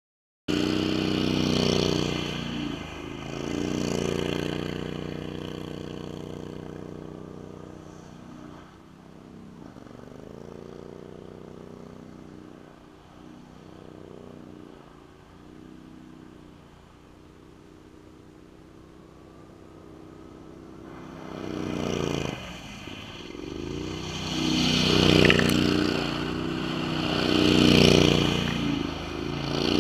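Engine of a Max 6x6 amphibious ATV running and revving as it spins doughnuts on ice. It fades as the machine drives off and grows loud again as it circles back close, with its tires scraping and crunching over the ice.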